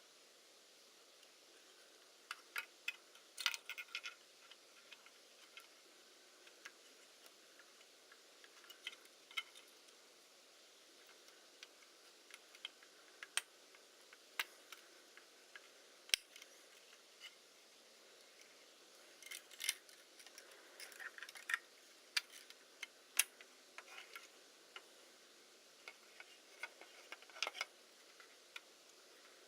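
Scattered light clicks and taps of small parts and tools being handled while working on a Hasselblad Winder CW camera winder. They come in clusters a couple of seconds in, around twenty seconds in and again near the end, with no motor running.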